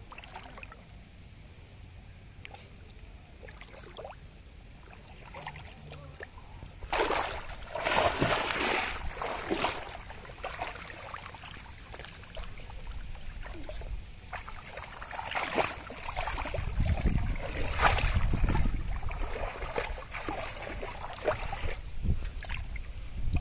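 Shallow muddy water splashing and sloshing as hands work through it inside a bamboo polo fish trap. It comes in irregular bursts after several fairly quiet seconds, heaviest about a third of the way in and again through the second half.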